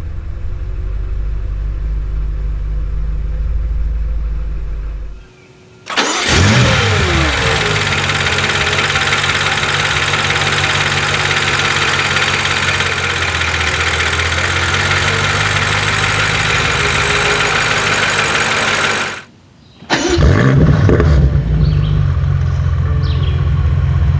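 2019 BMW M5 Competition's twin-turbo 4.4-litre V8 idling, then started twice at operating temperature with the exhaust valves open in Sport Plus. Each start gives a quick flare in revs that falls back to a steady idle, and each follows a short break in the sound.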